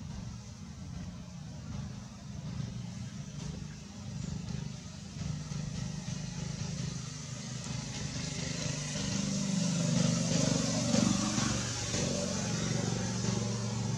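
A motor vehicle engine running, a steady low hum that grows louder about two-thirds of the way in and then eases slightly.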